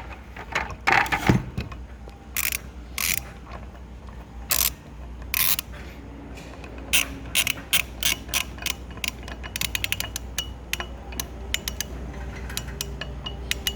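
Socket ratchet wrench clicking as it tightens the crank arm bolt on a spin bike. A few separate clicks at first, then quicker runs of clicks in the second half.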